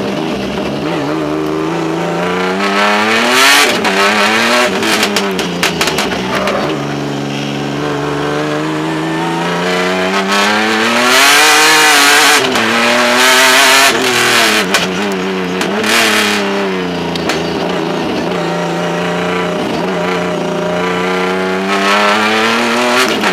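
Hyundai Genesis Coupe race car's engine heard from under the car at speed, its pitch repeatedly falling and rising as the driver comes off and back on the throttle through corners. There are several sharp clicks in the first few seconds and two bursts of loud rushing noise about halfway through.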